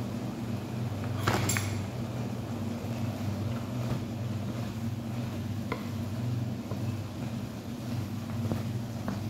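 Wooden spatula stirring ground chicken in a wok, with short scrapes and knocks against the pan and one louder clatter about a second in, over a steady low hum.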